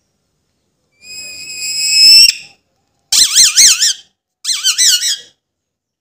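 Alexandrine parakeet calling loudly: one long high call ending in a sharp upward sweep, then two shorter whistles whose pitch wavers rapidly up and down.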